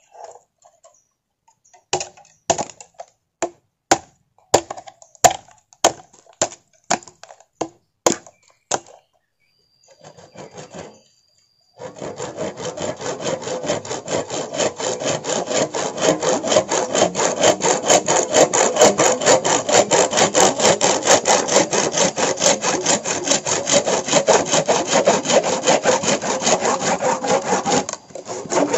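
About a dozen sharp knocks, then a hand saw cutting in quick, steady back-and-forth strokes, several a second, from about twelve seconds in until just before the end.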